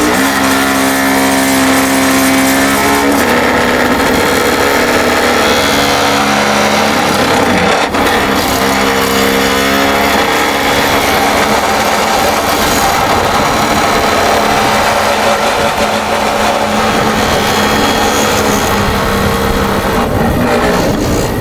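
Skid steer engine running under load while its hydraulic vibratory driver buzzes, vibrating a ground rod down into frozen ground. The machine note is steady but shifts pitch a few times.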